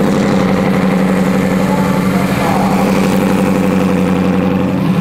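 A truck's engine running loud at a steady speed, holding one even pitch throughout.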